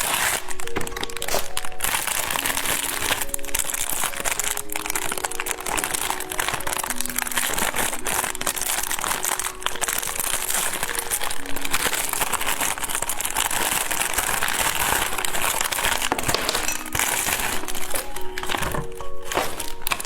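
Plastic candy wrapping crinkling and rustling continuously as it is handled and opened, over background music with a simple melody.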